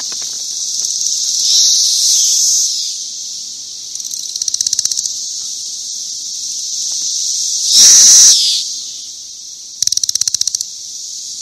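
Cicadas singing: a loud, steady, high-pitched buzz that swells about two seconds in and again, loudest, about eight seconds in, broken twice by bursts of rapid pulsing, about four and a half and ten seconds in.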